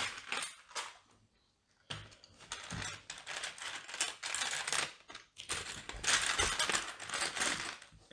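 Hands rummaging through loose plastic LEGO pieces, a busy clicking clatter in bursts with a short pause about a second in.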